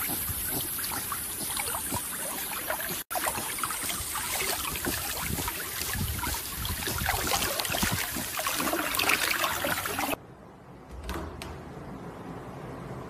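Water splashing and sloshing in irregular bursts as a puppy paddles while swimming. About ten seconds in it cuts off sharply, leaving a much quieter steady hum with a couple of faint clicks.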